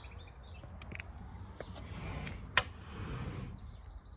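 Outdoor garden ambience with faint bird chirps and a few light knocks, broken by one sharp click about two and a half seconds in.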